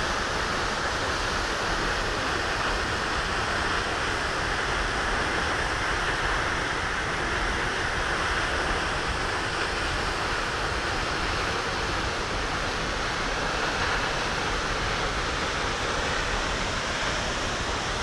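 Lower Düden waterfall pouring off a sea cliff into the Mediterranean: a steady, even rush of falling water.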